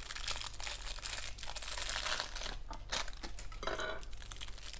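Imitation crab sticks being torn into shreds by hand, a soft, irregular rustling with small clicks.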